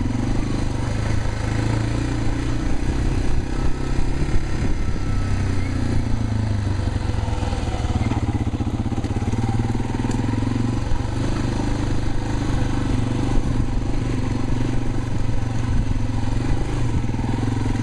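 Yamaha TW200's single-cylinder four-stroke engine running steadily as the motorcycle is ridden, its level wavering a little with the throttle.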